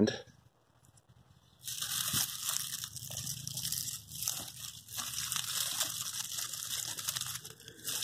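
Hands digging through loose soil and wood-chip mulch to uncover red potatoes: a dry rustling and crunching of crumbs and chips being pulled apart and tossed aside, starting about two seconds in.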